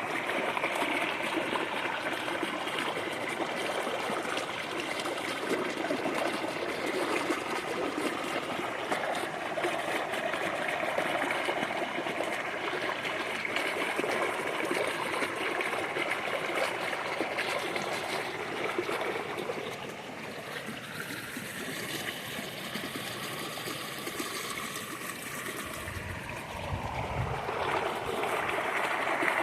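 Small creek flowing and trickling steadily. The water gets softer about two-thirds of the way through, with a brief low rumble, then louder again near the end.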